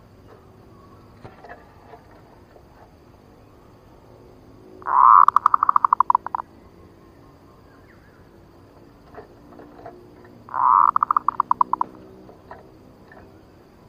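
Zebra dove (perkutut) cooing twice, about six seconds apart: each call opens with a drawn-out coo and breaks into a quick string of short staccato notes. It is the clear, sharp lure call used to provoke and draw in male zebra doves.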